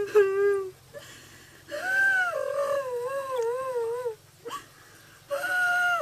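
A dog howling and whining in long, wavering calls. One call ends just after the start, a second runs for about two seconds, and a third begins near the end, with pauses between them.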